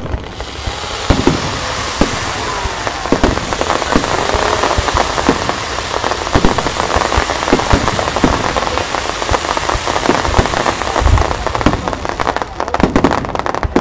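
Fireworks display: a dense, continuous crackling of sparkling stars, with frequent sharp bangs and a few heavy thumps of shells going off.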